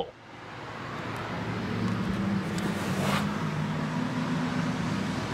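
Outdoor road traffic noise: a steady rumble with a low hum, rising over the first couple of seconds, and a short hiss about three seconds in.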